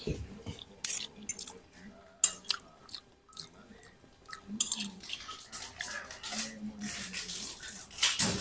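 A person eating noodles with a metal spoon and fork: sharp clinks of cutlery against the plate a few times in the first half, then wet chewing and slurping of noodles through the second half.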